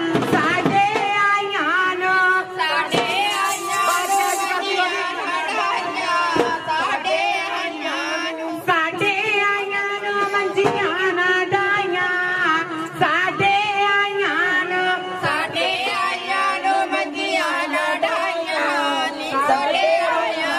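A singer performing Punjabi boliyan into a handheld microphone, one voice in long, wavering held notes, with sharp percussive strikes at irregular moments.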